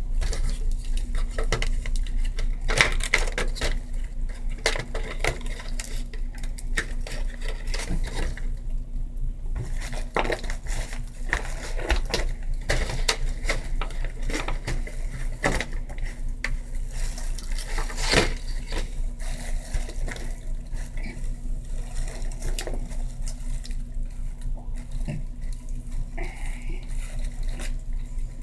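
Irregular small clicks, taps and clinks of acrylic nail kit items being handled (brush, small containers, tools), a few of them sharper, over a steady low electrical hum.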